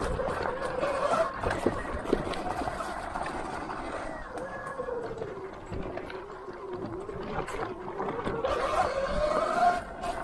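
Sur-Ron electric dirt bike's motor whining, its pitch rising and falling with road speed: it climbs in the first second, sinks through the middle and rises again near the end. A few sharp knocks sound in the first couple of seconds, over rumbling trail noise.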